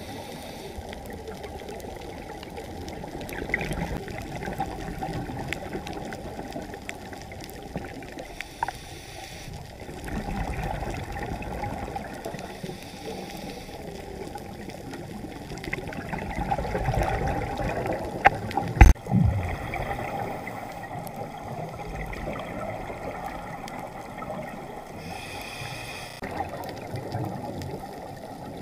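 Underwater sound of a scuba dive: a muffled low rush and gurgle of water and bubbles, swelling every five or six seconds, with one sharp knock about two-thirds of the way through.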